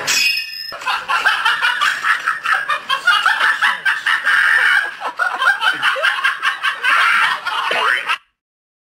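High-pitched, choppy laughter that cuts off suddenly near the end.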